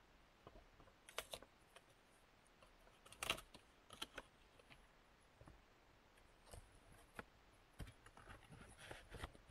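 Faint, scattered rustles and clicks of a cardboard filter box being handled and reached into, with a sharper knock about three seconds in.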